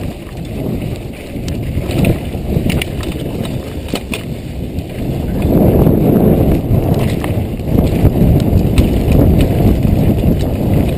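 Downhill mountain bike rattling and clicking over a dirt trail at speed, under heavy wind buffeting on the microphone. The rumble grows louder about halfway through.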